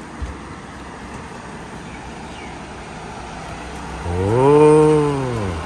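A man's long, drawn-out "wow" about four seconds in, its pitch rising and then falling, over steady background noise. A brief low thump comes just after the start.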